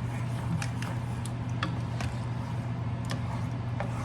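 Scattered light clicks and taps of kitchen utensils as curry powder is added to a pan of curry, over a steady low hum.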